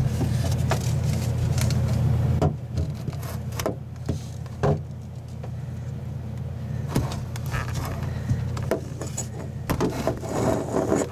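A steady low hum, stronger for the first two seconds or so and then softer, with scattered knocks and clicks from handling the camera and light in a cramped space.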